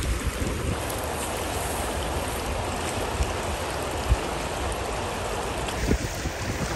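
Steady rushing wash of sea surf, a continuous noise with no pitch, with one brief knock about four seconds in.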